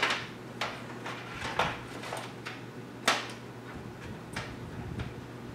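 Power-supply cable connectors clicking and knocking against a computer case while a SATA power connector is being fitted: about ten sharp, irregular clicks, the loudest about three seconds in.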